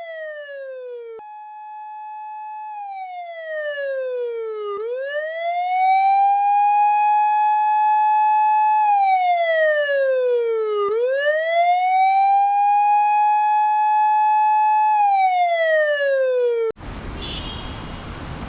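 Japanese police car siren sound effect wailing in repeated cycles: the pitch rises, holds, then falls, each cycle about six seconds long, growing louder a few seconds in. Near the end it cuts off suddenly and a steady rushing noise takes over.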